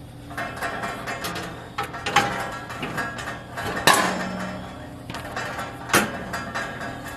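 Sheet-metal grill parts clanking and rattling as they are handled and set into place, several sharp metallic knocks, the loudest about two, four and six seconds in.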